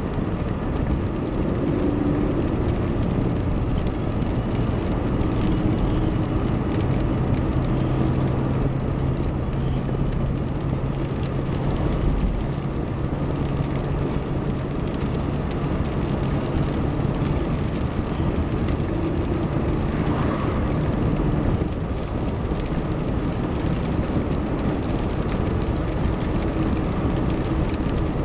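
Steady engine and tyre noise of a car being driven, heard from inside its cabin, with a low engine hum that holds steady through the middle stretch.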